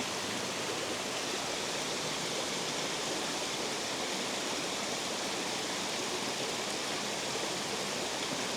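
Water rushing steadily over a spillway, an even rush with no change.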